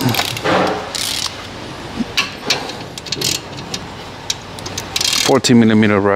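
Socket ratchet clicking in short, irregular runs, with light metal clinks, as it is worked onto a brake caliper bracket bolt.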